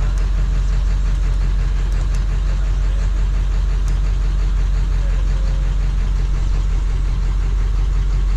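Ford 7.3 Powerstroke V8 turbo-diesel running steadily under the Super Duty while it misses badly and is low on power. The owner suspects failing injectors that are bleeding off oil pressure.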